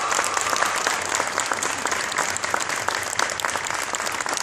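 Audience applauding: many people clapping at once, a dense steady patter.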